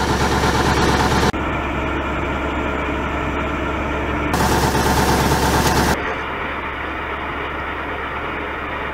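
Drilling rig's engine running steadily, driving the hydraulics while the outriggers are worked from hand levers. A brighter hiss switches on and off abruptly, present for about the first second and again from about four and a half to six seconds in.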